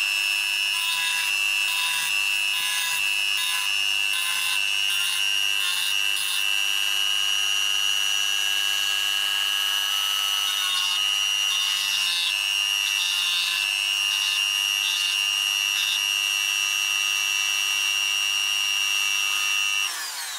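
Maxstar mini rotary tool running with a steady high whine, its grinding stone scraping in two stretches against the end of a lithium-ion battery cell to grind off old spot-weld marks. Near the end it is switched off and winds down.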